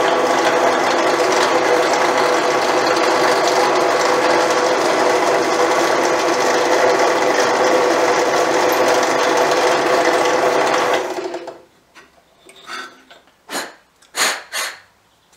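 Bench drill press running steadily as its bit drills a small fuse hole through a wooden dowel. About eleven seconds in the motor is switched off and winds down, and a few short knocks follow.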